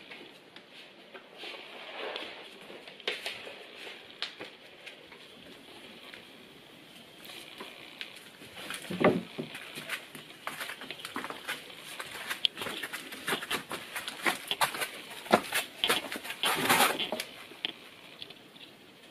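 Footsteps and handling noises: irregular knocks, clicks and rustles, sparse at first and busier in the second half, with two louder thuds, one about halfway through and one near the end.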